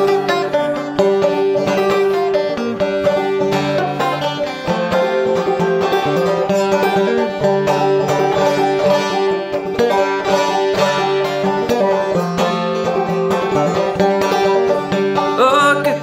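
Resonator banjo played solo: an instrumental break between sung verses, fast picked notes with one high note repeated all through.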